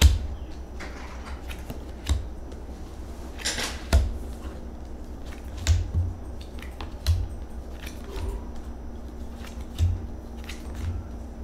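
Fortune-telling cards being dealt one by one onto a cloth-covered table: a series of soft taps and light thumps, about one every second or two.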